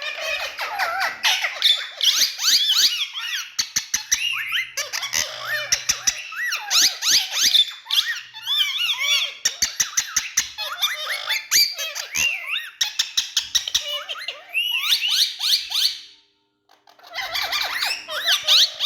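Indian ringneck parakeets chattering in fast, high-pitched squeaks, chirps and short rising and falling whistles, one call tumbling over the next. They fall silent for about a second near the end, then start again.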